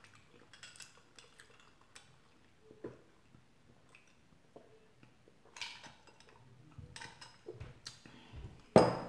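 Drinking through a metal straw from a glass: faint sips and small clinks of straw and glass, with a louder knock near the end.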